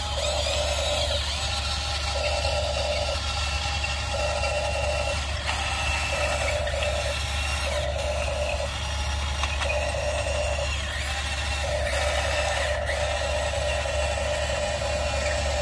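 Huina radio-controlled excavator's small electric motors and gears whirring as it drives on its tracks and swings its arm. There is a steady hum under it and a tone that pulses on and off about once a second.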